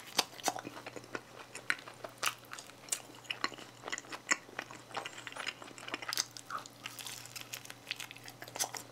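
A person biting and chewing a slice of Domino's braised pork pizza on grain crust: irregular crisp crunches and mouth clicks, several a second, with no talking.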